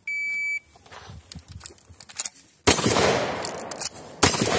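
Shot timer's start beep, a steady electronic tone lasting about half a second, then two gunshots from a long gun about a second and a half apart, each with a long ringing echo.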